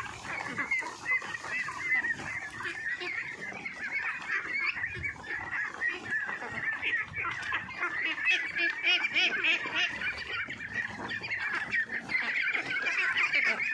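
A flock of three-month-old ducks calling constantly while feeding from a basin of wet mash, many short high calls overlapping into a busy chatter.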